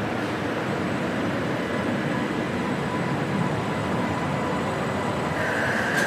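Stuttgart Stadtbahn light-rail train running on the track: steady rolling noise with a faint whine through it. A brief higher-pitched tone comes in near the end, followed by a sharp click.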